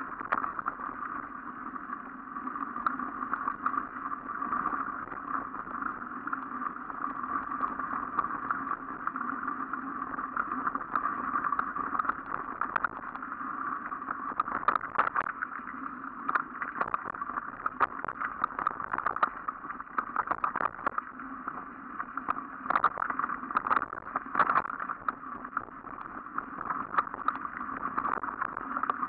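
Mountain bike rolling along a dirt trail, heard from a camera on the bike: a steady, muffled rumble of tyres and passing air, with frequent short rattles and knocks as the bike goes over bumps, busiest in the second half.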